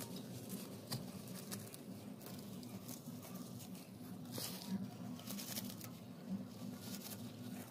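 Rustling and a few short crackly snaps as spring onion stalks are handled and picked by hand, over a steady low background hum.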